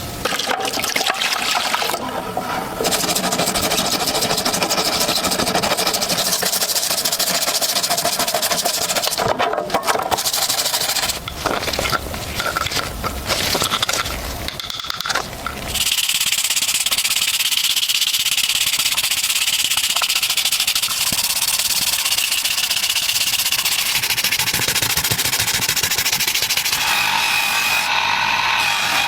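Tool work on a pistol's metal parts during restoration: choppy scraping and rubbing that changes abruptly several times, then from about 16 seconds in a small power tool running steadily with a high-pitched whine.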